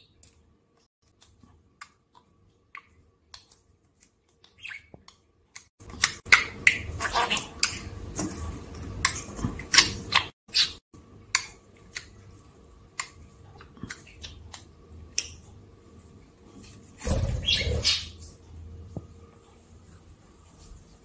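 Budgerigar chirping and chattering while it plays with hanging toys, with sparse clicks at first and then busy chirps and clicks from about six seconds in. There is a short, loud rush of noise late on.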